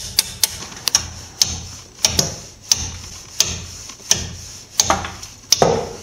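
Hammer striking a metal brake-line retaining clip on a strut bracket, sharp metallic taps about once every two-thirds of a second, to drive the clip into place.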